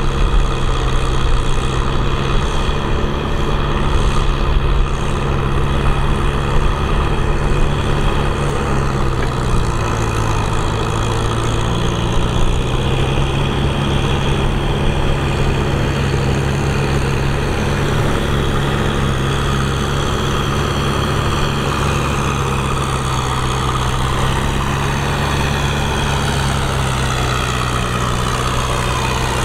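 Compact farm tractor's engine running steadily as it drives through a muddy field; the engine note drops slightly about ten seconds in.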